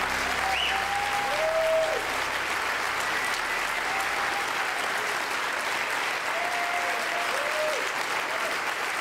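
Audience applauding steadily, with a few voices calling out over the clapping. The last low notes of music die away about two seconds in.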